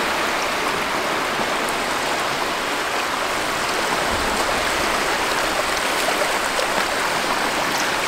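Shallow sea water rippling and washing over pebbles close to the microphone: a steady, even rush of water.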